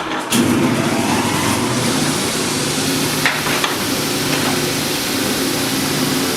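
Two metal lathes running together, an antique cone-head lathe belt-driven from a second lathe: a steady motor hum and whir of belts and gearing. It steps up in level shortly after the start, and there is a short knock about three seconds in.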